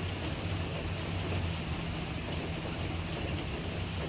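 Steady rain falling, a constant hiss, over a continuous low rumble.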